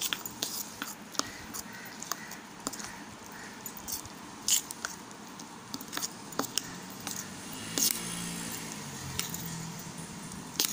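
Metal spoon stirring thick appam batter in a stainless steel bowl, with irregular clinks of the spoon against the bowl's sides.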